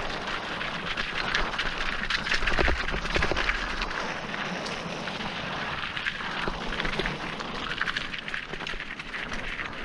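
Mountain bike riding over a loose, rocky singletrack: tyres crunching on stones and the bike rattling in many small clicks, with wind rumbling on the GoPro's microphone, loudest a couple of seconds in.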